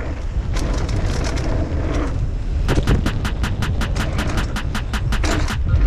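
Mountain bike riding fast down a trail, with wind buffeting the action camera's microphone. About halfway through there is a run of rapid, even clicks, about six a second, lasting some two and a half seconds.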